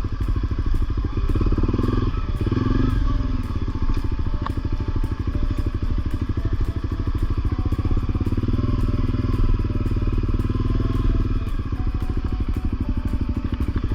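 Honda CRF250L's single-cylinder engine running steadily as the bike is ridden.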